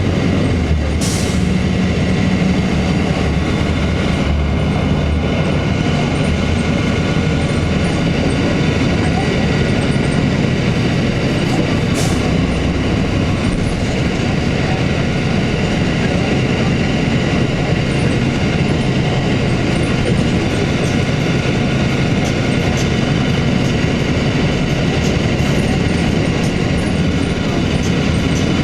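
Inside a 2002 Blue Bird CS transit bus under way: the Cummins ISC diesel's steady drone and rolling road noise, with small rattles from the cabin. A sharp click comes about a second in and another about twelve seconds in.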